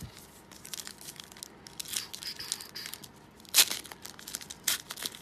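Foil wrapper of a 2017 Chronicles baseball card pack crinkling and being torn open by hand, a stiff, tight pack, with a sharp rip about three and a half seconds in and another about a second later.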